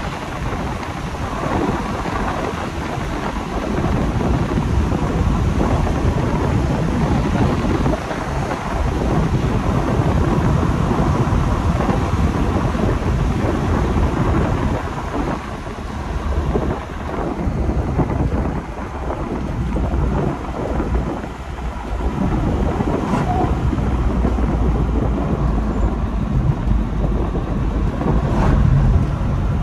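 Steady low rumble of road, wind and engine noise inside a Škoda Octavia II 1.9 TDI driving at speed on a country road, with wind buffeting the microphone.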